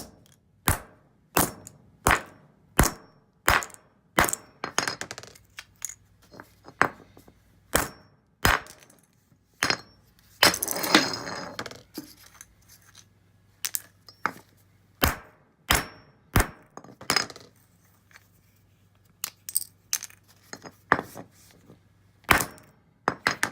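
Framing hammer striking a USB flash drive on the basement floor: sharp blows about one every 0.7 s, with a gritty scraping stretch a little before midway and pauses between runs of strikes.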